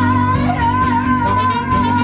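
Live band music with a female singer, horns, guitar and keyboard; one long note wavers slightly in pitch through the whole stretch over the band.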